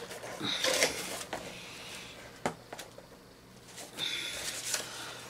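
Cardboard and plastic toy packaging being handled and rustled, in irregular bursts with a sharp click about halfway through and a couple of brief squeaks.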